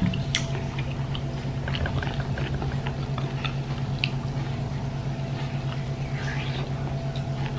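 Close-up eating sounds: a woman biting and chewing a beef-tendon meatball (bakso urat) wrapped in noodles, with small wet mouth clicks and squishes, over a steady low hum.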